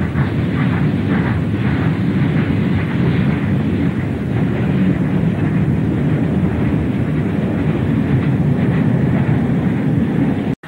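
Steam locomotive working a heavy train: a deep, steady rumble with exhaust beats, about three a second in the first few seconds, that then merge into the rumble. The sound cuts off abruptly just before the end.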